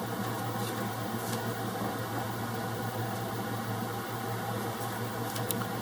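Steady low hum with a faint hiss over it, and a few faint ticks.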